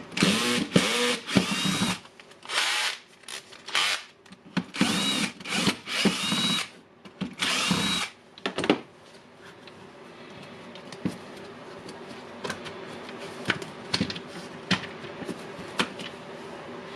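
Cordless electric screwdriver running in about a dozen short bursts with a whine, backing out housing screws. This is followed by a quieter stretch of scattered light clicks and taps of small parts being handled.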